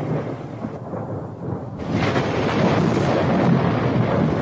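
Thunder rumbling continuously over a rain-like hiss. It dips briefly, then swells back louder about two seconds in.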